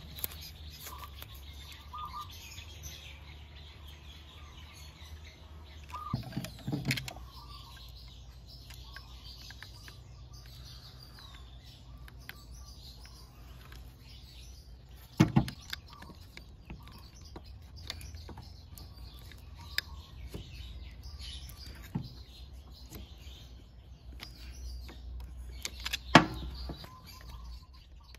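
Birds chirping in the background over a low steady hum. Hand tools click and knock a few times as pliers are handled, the loudest knock near the end.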